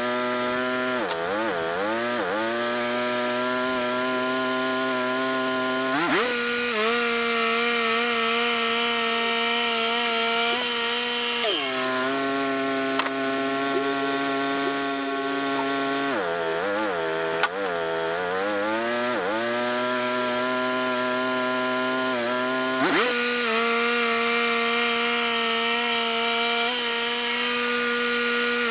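Wood-Mizer LT35 portable band sawmill running and sawing a yellow pine log, its engine and blade making a steady pitched drone over a hiss. The engine note dips and wavers twice, and the tone shifts abruptly a few times as the load changes.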